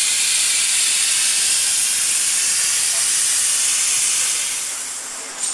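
Plasma torch of a portable CNC plasma cutter cutting steel plate: a loud, steady hiss. It fades about four seconds in, and a brief sharp sound comes near the end.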